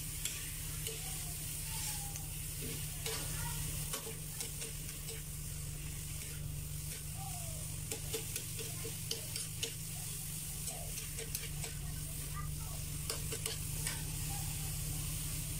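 Shrimp sizzling as they fry in butter and garlic in a wok, with a metal ladle stirring and scraping them, giving scattered clicks against the pan. A steady low hum runs underneath.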